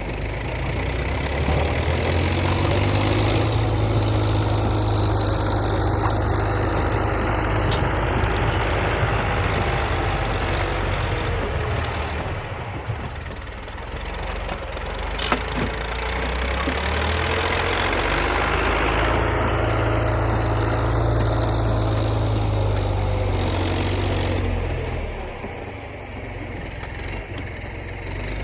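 John Deere backhoe's diesel engine revs up and holds for about ten seconds, drops back to idle, then revs up and holds again before settling back down. A single sharp click comes in the lull between the two.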